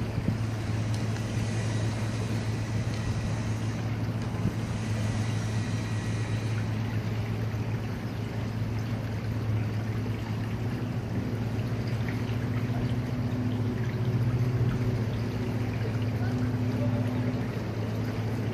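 A steady low engine hum with a rush of water over it. The water noise is brighter for the first six or seven seconds.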